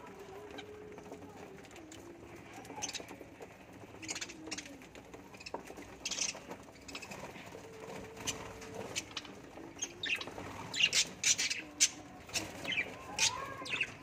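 A flock of budgerigars chirping and chattering in short, sharp calls, scattered at first and coming thick and loud in the last few seconds.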